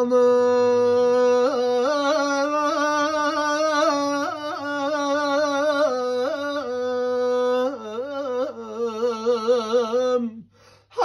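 A solo male voice sings an unaccompanied, drawn-out melismatic line of a Turkish ilahi: long held notes decorated with quick ornamental turns, then a fast warbling stretch. The voice breaks off briefly near the end.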